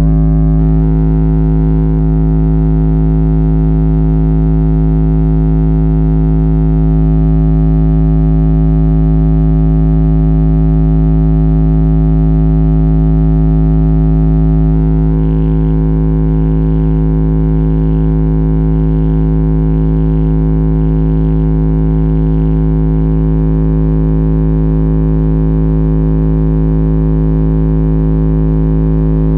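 Deep, steady test tone from a tone generator played loud through a car's audio system, with a buzz of distortion overtones above it. It is the kind of tone used to shake loose interior trim so rattles can be traced. About halfway through the upper buzz grows slightly.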